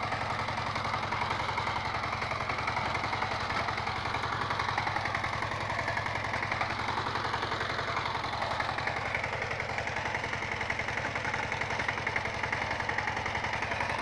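Walking tractor's single-cylinder diesel engine running steadily with a rapid even chug, working under load as it pulls a disc plough through the soil.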